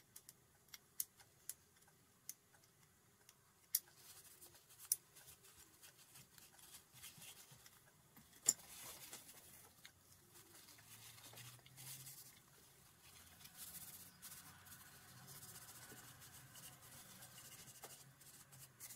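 Small metal parts of a disassembled Swiss Arms P1911 air pistol clicking as they are handled and set down, several sharp clicks in the first five seconds and one more at about eight seconds. After that a cloth rubs and wipes over the pistol's metal frame.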